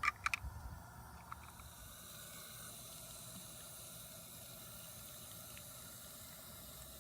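Water being poured out of a small plastic toy car: a few light plastic clicks, then a steady trickle running on.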